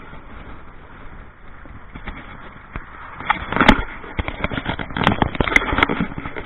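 Road noise from a boat riding on its trailer under tow, heard from inside the boat, with wind and handling crackles on the camera microphone. From about three seconds in, loud irregular crackling knocks come and go.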